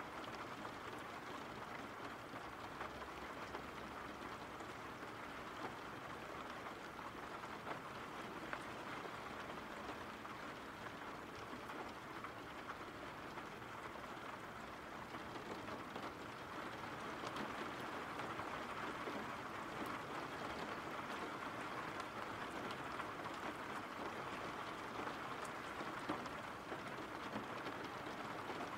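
Steady rain falling: an even hiss with scattered drop ticks, a little louder past the middle.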